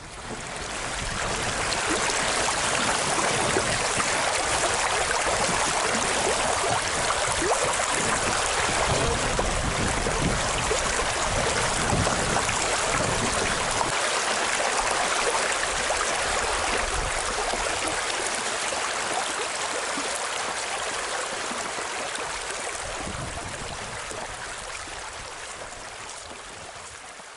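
Flowing river water, a steady rushing hiss. It fades in over the first couple of seconds and slowly fades out toward the end.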